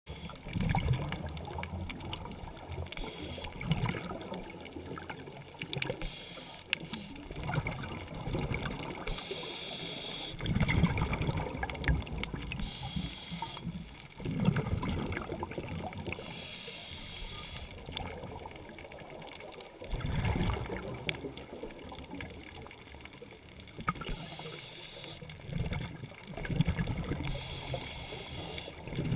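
Scuba diver breathing through a regulator, heard underwater: a hissing inhale about every four to six seconds, each followed by a low, bubbling exhale.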